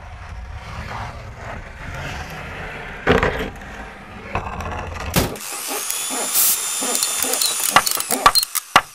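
Cartoon sound effects: a metal-legged trampoline dragged and scraping along the ground, with a loud knock about three seconds in, then, from about five seconds in, workshop noise of tools at work: sharp hammer knocks and a high steady whine.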